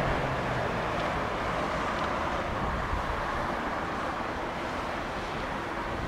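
Twin jet engines of a Boeing 777 in reverse thrust on the landing rollout: a steady rushing noise that slowly dies down.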